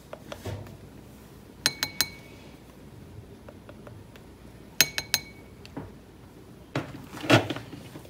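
Kitchen dishes and glassware clinking: two light clinks about two seconds in and three more around five seconds, each ringing briefly, then a louder short handling noise near the end.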